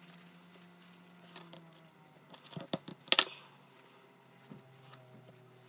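A short cluster of light clicks and knocks from small parts and tools being handled and set down on a tabletop, loudest about three seconds in. Otherwise faint room tone with a low steady hum.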